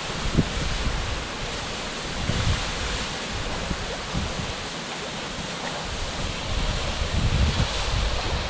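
An 85 m plunge waterfall rushing steadily, with irregular low rumbles of wind buffeting the microphone.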